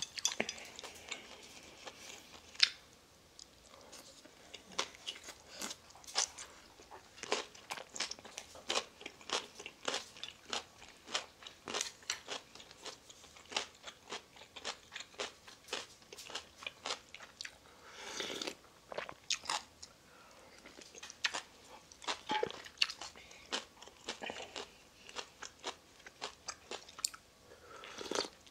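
Close-up eating sounds of a person chewing spicy ramen noodles: a steady run of wet mouth clicks and smacks, several a second. There are a couple of longer slurps of noodles, one around the middle and one near the end.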